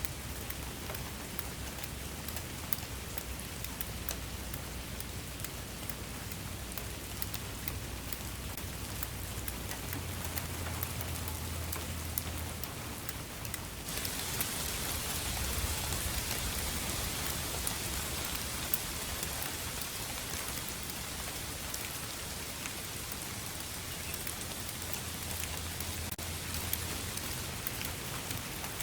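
Steady rain falling, a dense hiss with the patter of individual drops. About halfway through the rain grows louder and hissier.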